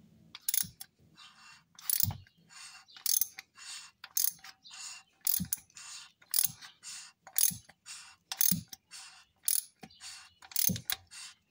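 Ratcheting wrench clicking in short runs, about two a second, as it snugs down an oil filter housing cap.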